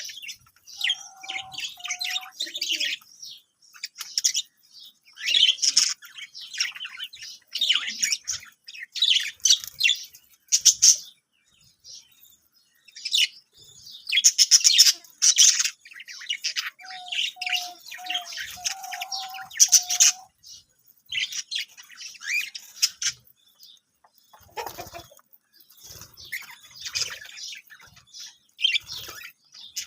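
Budgerigars chirping and chattering in bursts of quick, high twittering broken by short pauses, with a few lower warbled notes mixed in.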